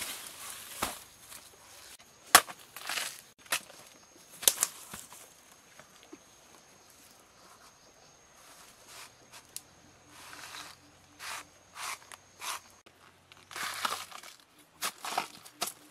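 A knife chopping into a banana tree trunk, then the fibrous outer sheaths tearing as they are split and peeled away. A few sharp knocks come first, then a run of short rustling tears in the second half.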